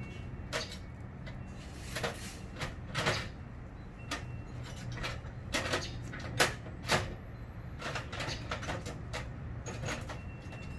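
Irregular clicks, knocks and clinks of hard objects being handled, the loudest about six and a half seconds in, over a steady low hum.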